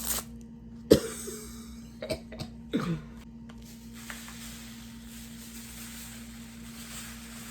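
A person coughing, sharply about a second in and again more softly near three seconds, over a steady low hum.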